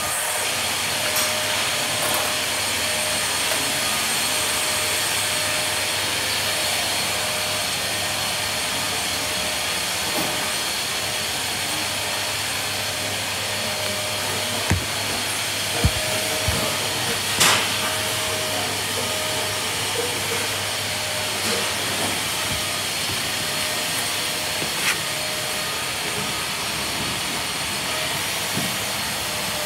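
CFMOTO CForce 520S ATV's single-cylinder engine idling steadily, with a few knocks about halfway through.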